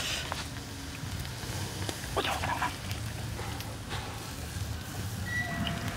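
A short animal call about two seconds in, over a low steady hum.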